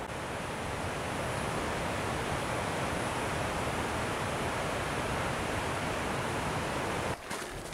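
Steady rush of a cascading mountain stream, an even hiss of falling water that cuts off suddenly near the end.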